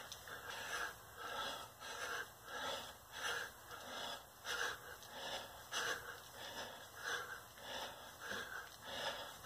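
A man breathing hard and fast from the exertion of repeated bodyweight squats, about one and a half breaths a second in an even rhythm.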